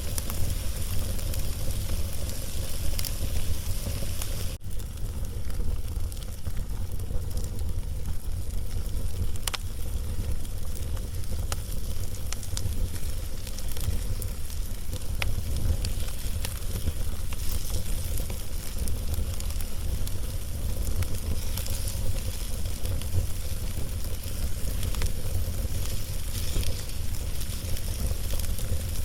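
Wood log fire crackling, a steady hiss broken by scattered sharp pops, over a steady low rumble.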